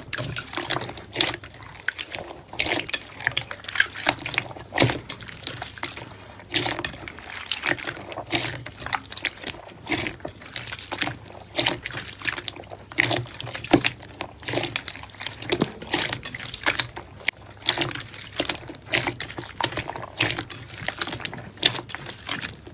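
Slime being squished, giving an irregular run of wet clicks and pops, several a second, that stops abruptly at the end.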